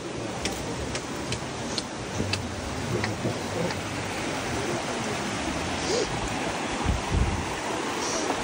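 Creek water running over rocks in a steady rush, with a few sharp clicks in the first two seconds.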